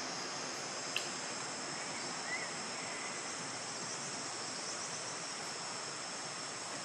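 Steady high-pitched insect chorus over a constant background hiss, with a single sharp click about a second in and a brief chirp a little after two seconds.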